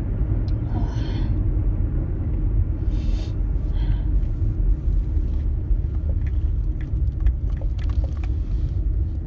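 A woman's deliberately high-pitched sneezes performed on request, two short ones about one and three seconds in with a softer burst just after, followed by faint clicks. A steady low rumble runs underneath.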